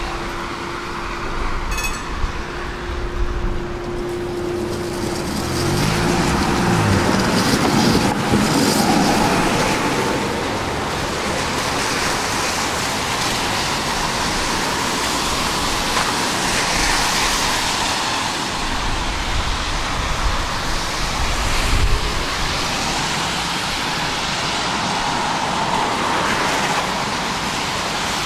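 Tram running, heard from inside the car. A steady tone holds for the first few seconds, then a rising whine about six seconds in as it picks up speed, followed by steady rolling noise of wheels on rail.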